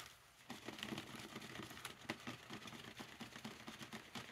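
Gloved hands rubbing worm castings through a plastic sifting screen: a quick, irregular run of gritty scratches and small clicks.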